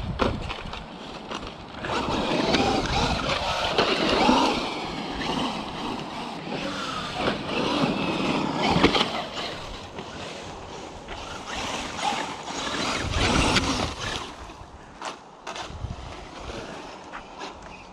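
Traxxas UDR electric RC truck being driven hard: its motor whine rises and falls with the throttle over a steady wash of tyre and ground noise.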